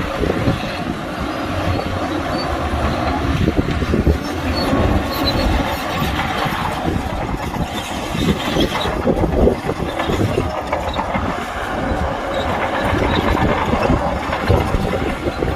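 Bulldozer at work: diesel engine running under a steady stream of metallic clanking, with occasional faint squeals from its steel crawler tracks.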